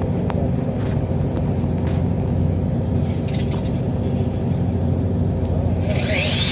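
An engine or motor running steadily with a low hum. A hiss with a rising whine begins near the end.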